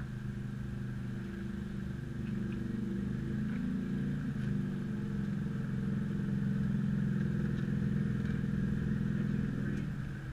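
Small motorcycle engine idling steadily, joined by a small scooter engine that grows louder through the middle as it pulls up close, then eases off near the end.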